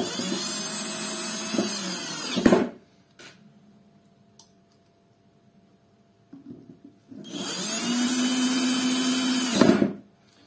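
Cordless power screwdriver driving screws in two runs of about two and a half seconds each. Each run spins up to a steady whine and ends with a sharp clunk as the screw seats.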